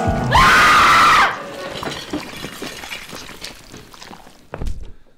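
A loud scream lasting about a second, followed by scuffling noise and a thud near the end.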